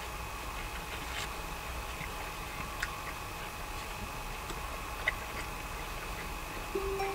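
A man chewing food inside a quiet parked car, with a few faint clicks over a steady thin high whine.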